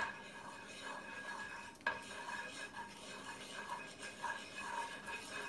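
Wooden spatula stirring chopped onions frying in olive oil, scraping around a frying pan, with a single knock against the pan a little under two seconds in.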